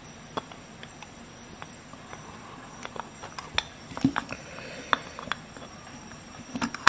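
Knipex Twin Grip slip joint pliers (82 01 200) gripping and twisting a screw head in a wooden board: irregular sharp clicks and creaks of the jaws and screw, sparse at first and more frequent from about three seconds in.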